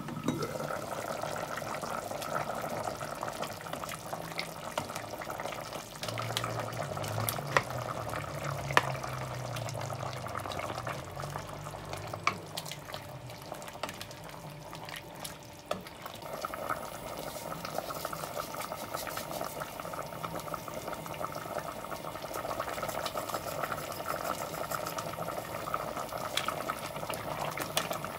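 A steel stockpot of potatoes, artichokes and lardons simmering in stock, bubbling steadily as a wooden spoon stirs through it, with a few sharp knocks of the spoon against the pot.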